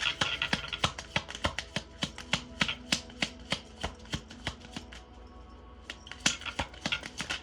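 Tarot deck being shuffled by hand: a run of quick card clicks and flutters. They come densest at the start and again about six seconds in.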